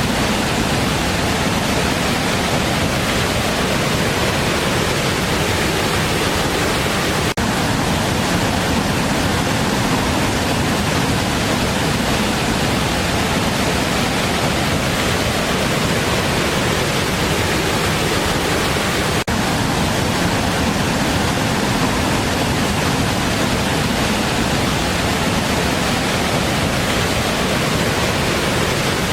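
Large waterfall: a loud, steady rush of falling water, broken by two momentary dropouts about seven and nineteen seconds in.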